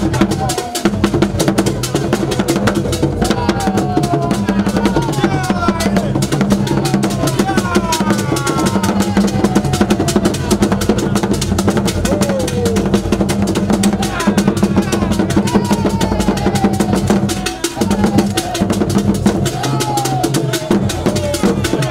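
Loud, fast drumming that runs on without a break, with voices calling out in short rising and falling cries over it and a low steady tone underneath; the drumming drops out for a moment near the end.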